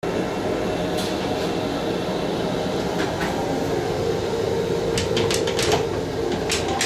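Steady running noise and hum inside an M7 commuter railcar. From about five seconds in, a quick run of sharp clicks and knocks as the toilet seat is handled.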